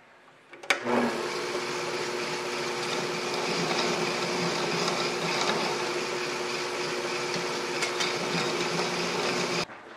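Drill press running with a step drill in the chuck while the back sides of stepped lightening holes in a sheet-metal rib are deburred against it: a steady motor whir with a hum. It starts with a click under a second in and cuts off abruptly shortly before the end.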